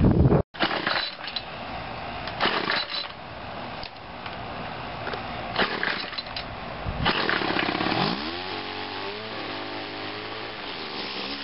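Gas string trimmer's small two-stroke engine being pull-started: several yanks of the starter cord, then about two-thirds of the way in the engine catches, its pitch rising, and settles into a steady idle.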